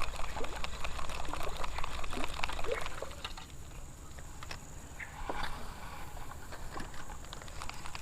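River water splashing and sloshing in small irregular bursts, louder for the first three seconds and then quieter.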